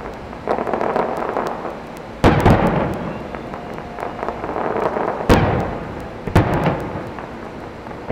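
Aerial firework shells bursting in a string of booms, about five in eight seconds. The loudest come a little after two seconds in and about five seconds in, each echoing away, with scattered crackles between them.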